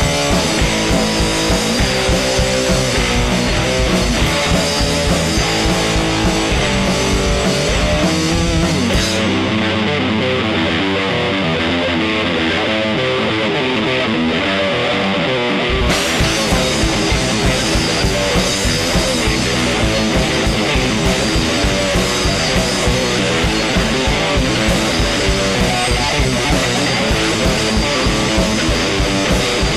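Punk rock band playing an instrumental passage on electric guitar, bass and drums. About nine seconds in the drums drop out, leaving the guitars, and the full band crashes back in around sixteen seconds.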